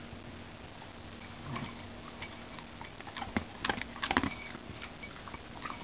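Dry dog treats clicking and rattling in a small bowl as a baby's hand picks through them: a few light, irregular clicks, bunched toward the middle.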